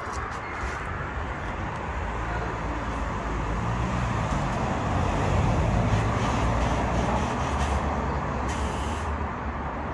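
A motor vehicle's engine rumbles close by on the street, growing louder through the middle and easing off again. A brief hiss comes about eight and a half seconds in.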